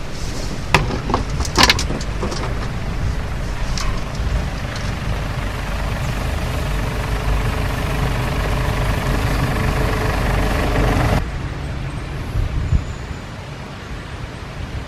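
Jeep 4x4 driving slowly over a rough forest track, its engine running steadily with several sharp knocks and rattles from the bumps in the first two seconds and another near four seconds. About eleven seconds in the sound drops suddenly to a quieter, more distant engine rumble with one knock.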